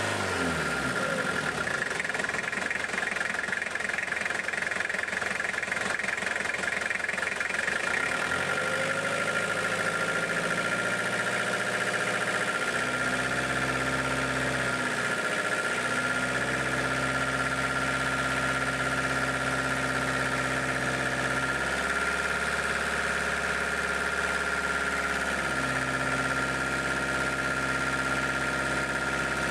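Toyota Hilux LN106's 2.8-litre four-cylinder diesel idling, its speed nudged up and back down slightly a few times, with a steady high whine throughout.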